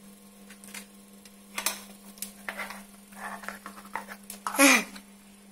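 Metal cutlery scraping and clicking against a plastic plate as a fried egg is cut up, over a steady low hum. About four and a half seconds in, a brief loud sound falls in pitch.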